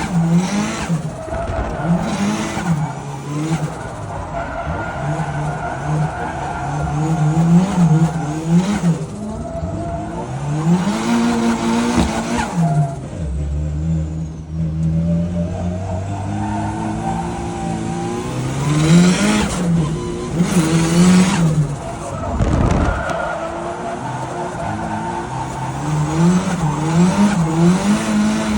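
Turbocharged Nissan Silvia SR20 four-cylinder engine revving up and falling back over and over while drifting, with tyres squealing in several stretches. Around the middle it drops to a lower, steadier run for a few seconds.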